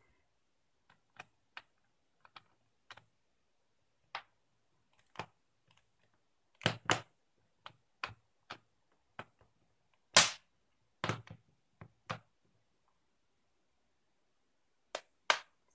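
Plastic back cover of a Samsung Galaxy Tab 3 being pressed on by hand, its retaining clips snapping into place: a string of irregular sharp clicks and snaps, some in quick pairs, the loudest about ten seconds in.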